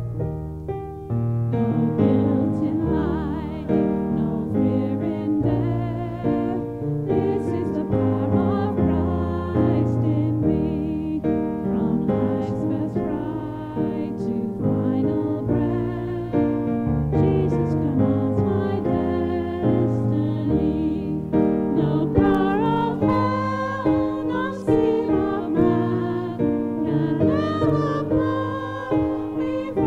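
A hymn sung to piano accompaniment: keyboard chords with voices singing along, the singing growing stronger in the last third.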